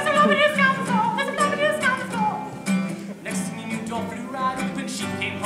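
Nylon-string classical guitar strummed in a rhythm, with a voice singing over the first couple of seconds.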